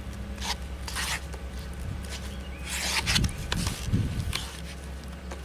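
Bondo body filler being mixed with hardener: short, irregular scraping strokes of the mixing tool across the filler, with a couple of dull thuds about three and four seconds in, over a steady low hum.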